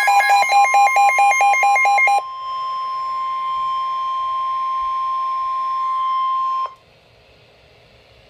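Weather radio alert: a rapidly pulsing electronic beep for about two seconds, then a steady single-pitched warning alarm tone over radio hiss that cuts off suddenly about two-thirds of the way through, leaving faint static. This is the alert that comes before a broadcast severe thunderstorm warning.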